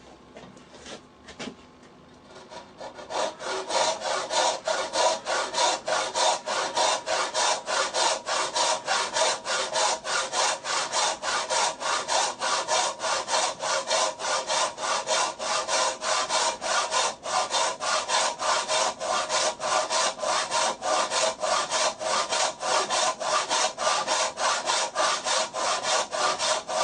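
Hand saw cutting wood in steady back-and-forth strokes, about three a second, cutting along scribed lines to form tenon shoulders. The sawing starts a couple of seconds in and stops just before the end.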